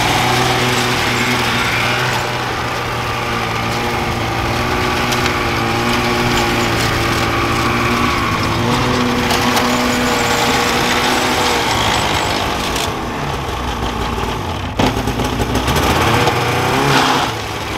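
Two-stroke Polaris SKS snowmobile engine running at low revs, the sled being ridden slowly. The pitch wavers, and the engine revs up briefly near the end.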